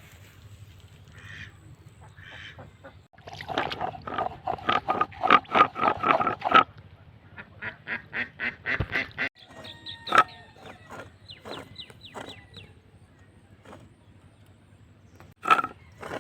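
Ducks quacking in rapid runs of about five quacks a second, one run about three seconds in and another about seven seconds in, with fainter calls after.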